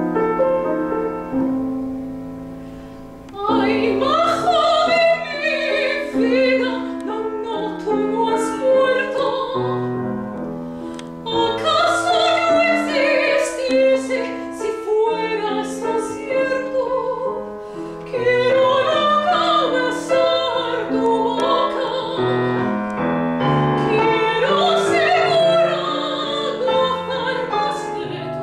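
A woman sings classical art song with vibrato, accompanied by a grand piano. The piano plays alone for the first three seconds or so before the voice comes in, and the singing then runs in long phrases with short breaks between them.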